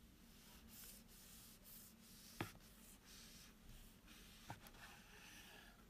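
Kitchen knife sawing through a baked loaf, a series of faint scratchy strokes, with two sharp taps against the wooden cutting board about two seconds apart.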